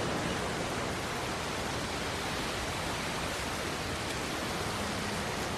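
Steady, even rushing noise with no distinct events, like a film's ambient track of distant surf or wind. A faint low hum comes in near the end.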